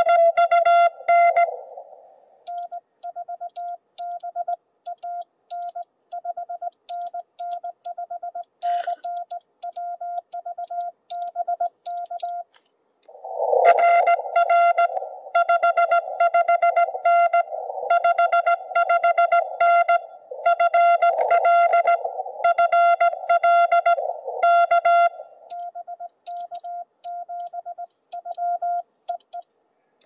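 Morse code (CW) from a ham radio transceiver, a single tone of about 700 Hz keyed on and off in dots and dashes. Stretches of clean, quieter keying alternate with louder stretches of Morse sitting in a hiss of band noise, as in a back-and-forth contact.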